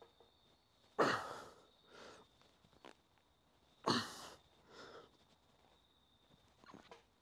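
A man breathing hard through a dumbbell bench press: two sharp, loud exhales about three seconds apart, each followed by a quieter breath about a second later.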